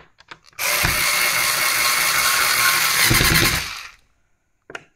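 Cordless drill/driver running for about three seconds as it drives a mounting screw into the wall, with a fast ratcheting rattle near the end before it stops. A few small clicks come before and after it.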